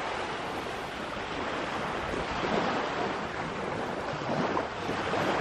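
Gentle surf washing onto a sand beach: a steady rush of small waves.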